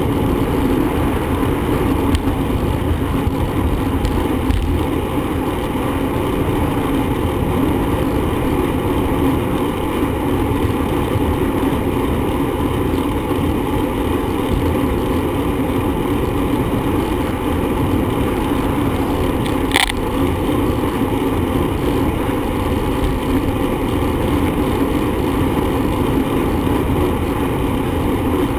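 Steady wind and road noise from riding a bicycle, rushing over the microphone, with one brief sharp click or ring about 20 seconds in.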